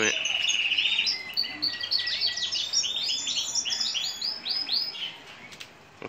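Crested canary singing a long, fast song of rapidly repeated trilled notes that shift from phrase to phrase, stopping about five seconds in. The bird is in full song, ready for the breeding season.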